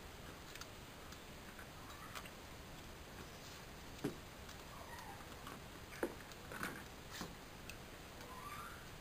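Light scattered ticks and knocks from a dog moving around a plastic paddling pool with a floating ball, the two sharpest knocks about four and six seconds in, with a few short chirps between them.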